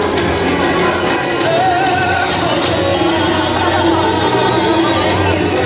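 Parade music with a singing voice, playing loud and steady.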